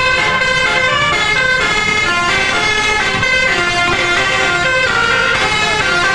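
Multi-tone 'telolet' bus horn playing a melody, its notes stepping quickly from pitch to pitch, over a low rumble.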